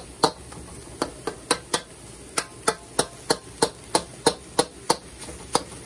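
Metal spatula clacking against a steel wok while stir-frying diced onion, egg and chicken, a sharp strike about three times a second in an even rhythm.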